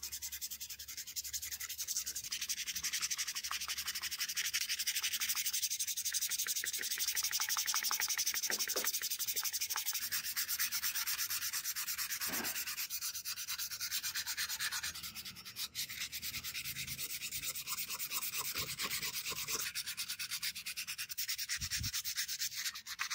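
Hand sanding with P220 sandpaper on a painted metal model car body: quick, continuous back-and-forth strokes with a high, hissing scratch, easing off briefly a little past halfway.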